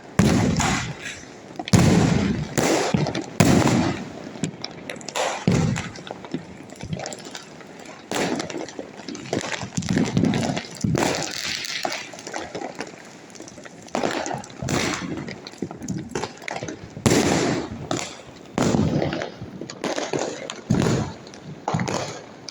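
Diwali firecrackers and fireworks going off, an irregular series of bangs and pops each with an echoing tail; the loudest bangs come in the first few seconds and again past the middle.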